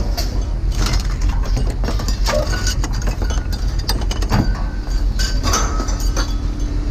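Scrap metal clanking and clattering as pieces are unloaded and dropped in quick succession, over a steady low engine rumble.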